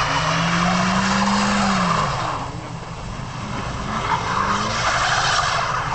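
Seat Ibiza's engine revving as its tyres spin and slide on ice, in two spells: one through the first two seconds, with the engine note rising and then dropping, and another from about four seconds to near the end.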